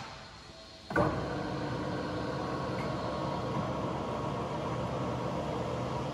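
Dashin Champion 1550 geared-head lathe starting up with a sharp clunk about a second in, then running steadily with an even mechanical hum.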